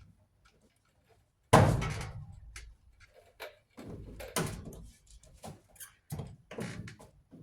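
Knocks and clatter of a clothes dryer's metal parts being worked on by hand during disassembly: one loud thud about one and a half seconds in that rings on briefly, then a string of smaller knocks and clanks.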